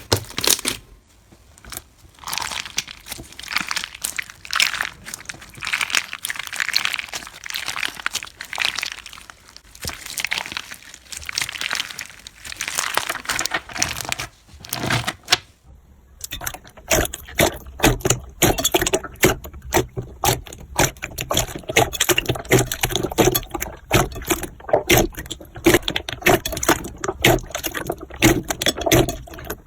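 Slime being squeezed and stretched: first soft, slowly swelling squishing. About halfway through it gives way to dense, rapid crackling and popping, typical of crunchy slime.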